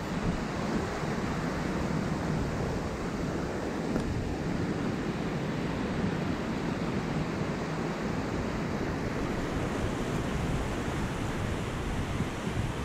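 Small waves washing steadily onto a sandy shore, with wind rumbling on the microphone.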